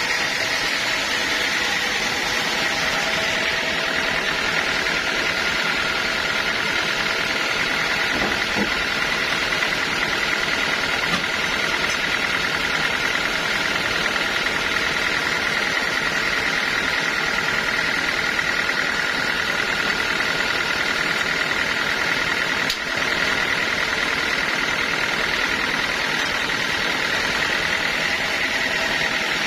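Sawmill bandsaw running steadily, with a constant high whine over its machine noise.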